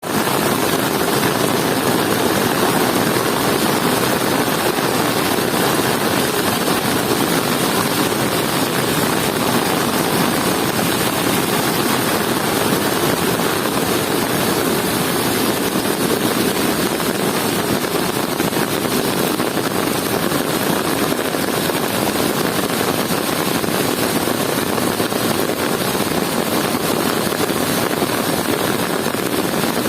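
River in spate after heavy rain, its fast, high water rushing in a steady, unbroken noise.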